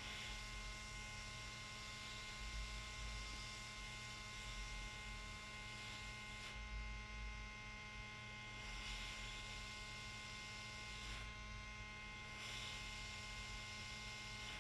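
Steady electrical mains hum with several faint, steady whining tones over a light hiss. The hiss drops away briefly about six and a half seconds in and again about eleven seconds in.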